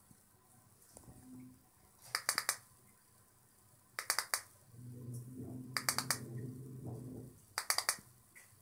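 Xiaomi smart wireless switch button pressed repeatedly, clicking in four quick clusters of three or four clicks each, about two seconds apart. A faint low murmur sounds in the background through the middle.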